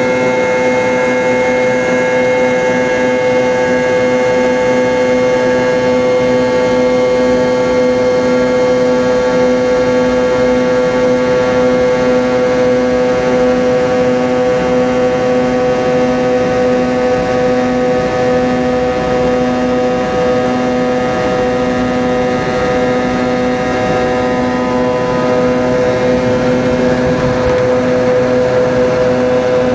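Cabin sound of a McDonnell Douglas MD-82's rear-mounted Pratt & Whitney JT8D turbofans at takeoff thrust during the takeoff roll. It is a loud, steady jet drone with a whine of several held tones.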